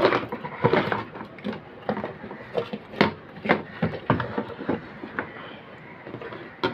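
Handling noise from an inverter circuit board and its attached wires and panel being turned over, shifted and set down on a table: a series of irregular clicks, knocks and rustles.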